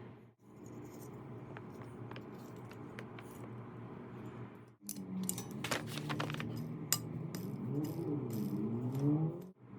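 Small metal parts clicking, clinking and rattling, heaviest in the second half, over a steady low hum.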